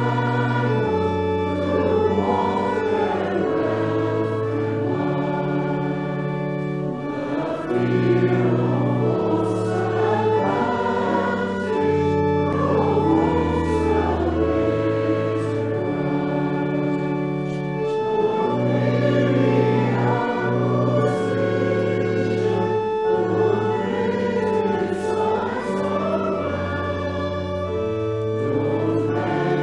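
A hymn sung by a group of voices over held accompanying chords, with the bass stepping from one long note to the next.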